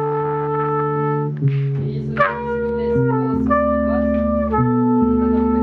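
Trumpet playing long held notes that change pitch every second or so, with one quick downward slide about two seconds in, over sustained bass guitar notes.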